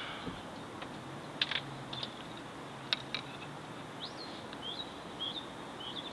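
A bird chirping outdoors: a series of short, curved chirps in the second half, over a steady background hiss. A few sharp clicks come earlier, about one and a half and three seconds in.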